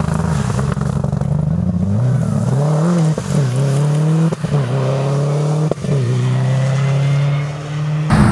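Subaru Impreza rally car accelerating away out of a junction: a steady engine note at first, then the pitch climbs and drops through about three quick upshifts with a sharp pop at each change, settling to a steady pull.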